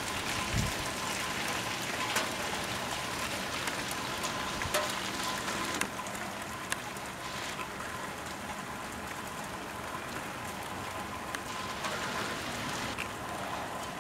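Steady rain falling, an even hiss with a few faint scattered ticks.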